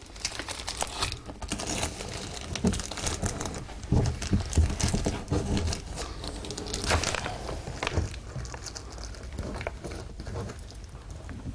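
A plastic-wrapped termite bait packet being handled and pushed into a wall cavity through a power point opening. It makes a dense run of irregular rustles and light knocks that thins out over the last few seconds.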